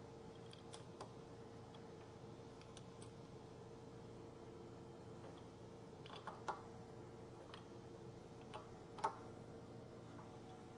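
Scattered light clicks and taps of small metal lathe parts being handled, most of them in the second half and the loudest about nine seconds in, over a faint steady hum.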